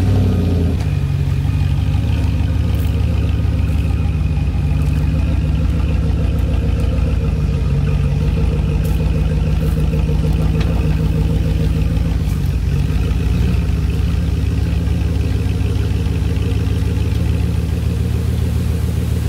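Chevrolet Tahoe's engine catching at the start with a brief flare in revs that settles within a second, then idling steadily. It stops at the very end.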